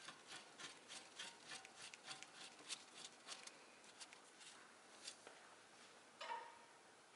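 Faint, even clicking of a ratchet wrench, about three clicks a second, as a brake caliper bolt is run in; the clicking stops about five seconds in, and a brief scrape follows about a second later.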